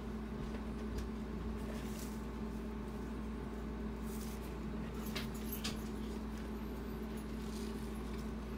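Steady low background hum with a few faint rustles and taps as a latex clown mask with synthetic hair is handled and turned over.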